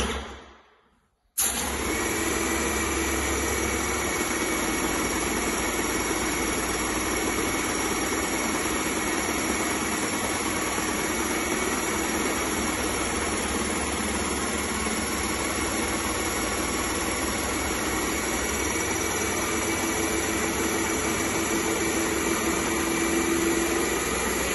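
Wagner Control Pro 250M airless paint sprayer's pump running steadily, pushing water through the system to flush it clean. It starts abruptly about a second in.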